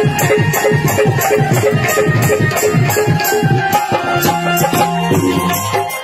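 Live devotional music interlude without singing: tabla drumming to a steady rhythm, with a rattle-type shaker keeping time and a held melody over it.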